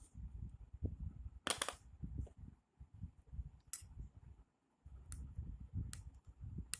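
Low, uneven rumbling rubs with five sharp clicks, the first and longest about a second and a half in, the rest spread through the second half.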